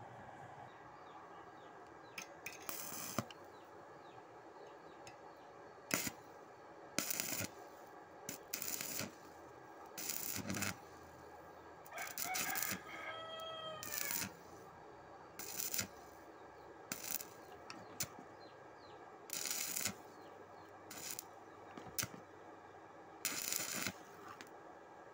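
Shielded metal arc (stick) welding with an E6013 electrode on steel plate, the arc struck and broken again and again in well over a dozen short bursts, each from a fraction of a second to about a second long, a second or two apart.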